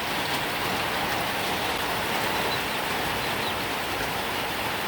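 Heavy downpour of rain, a steady even hiss.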